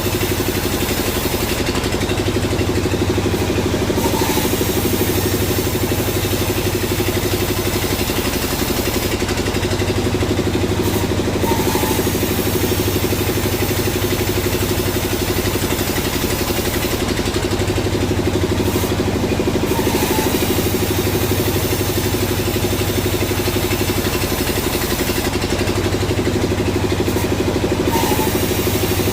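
Sawmill machinery running with a steady engine drone. The high hiss eases off briefly about every eight seconds, four times over, in a repeating work cycle.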